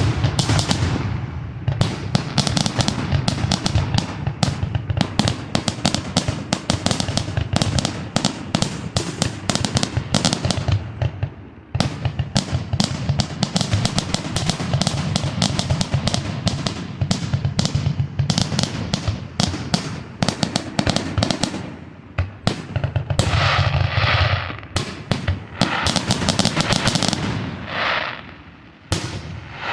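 Fireworks display going off in dense, rapid volleys of bangs and crackles. There is a short lull about eleven seconds in, and the bursts thin out near the end.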